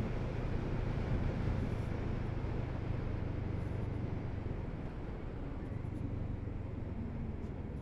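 Kawasaki Z650RS parallel-twin engine running steadily at road speed, under wind rush and tyre noise. The engine note eases a little in the last few seconds.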